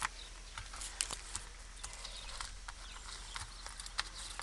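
Scattered light clicks and taps, a few a second, from a small dog moving about on a plastic sheet: its claws on the surface and the tape measure it noses at.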